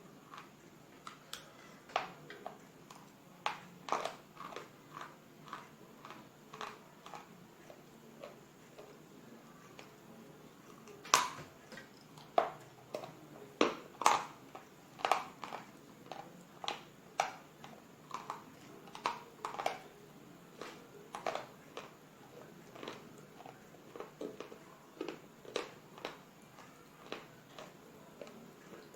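A person biting and chewing brittle slate bars close to the microphone: a string of sharp crunches, one or two a second, the loudest about eleven and fourteen seconds in.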